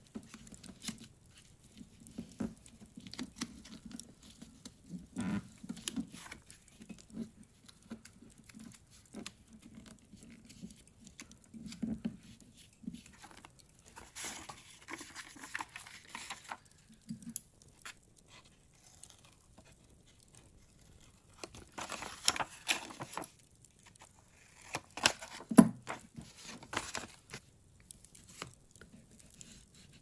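Paper and cardstock being handled: sliding, folding and creasing by hand on a cloth-covered table, with irregular rustles and small crackles and a few louder bursts of scraping and crinkling.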